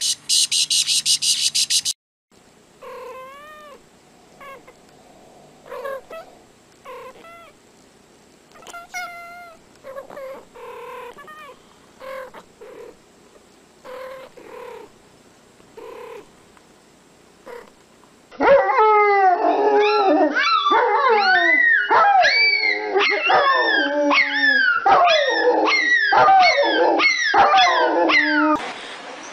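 Small domestic animals making short, high, gliding calls. At first the calls are faint and come about one a second; from about 18 seconds in they are loud, with many overlapping. The first two seconds hold a loud, rapid, rhythmic sound of another kind.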